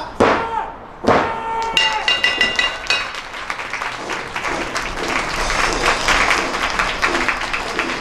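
A referee's hand slaps the canvas of a wrestling ring for the final count of a pinfall. About two seconds in, the ring bell is struck rapidly several times for about a second to end the match, then the crowd applauds.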